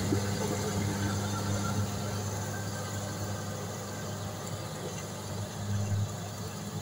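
Kubota combine harvester's diesel engine running steadily with a low hum while it harvests, growing slightly fainter as the machine draws away.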